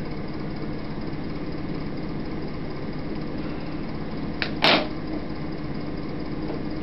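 Steady background hum and hiss. About four and a half seconds in there is a small click, followed right away by a short, sharp knock.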